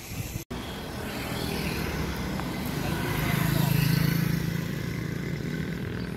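A motor vehicle passing on an open road: a low engine hum swells to its loudest a little past the middle and then eases, over steady road and wind noise. The sound cuts out for an instant about half a second in.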